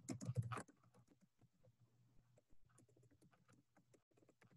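Computer keyboard typing: rapid keystrokes, a louder cluster at the start, then faint and quick.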